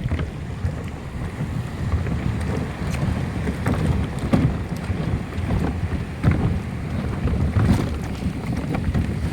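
Wind buffeting the microphone in a steady low rumble, with scattered light knocks and taps.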